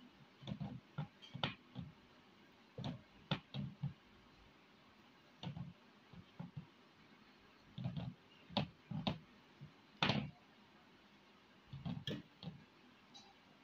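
Hand pressing and patting marinated chicken pieces into flour in a bowl: soft, irregular thuds and taps coming in small clusters, with the bowl knocking now and then.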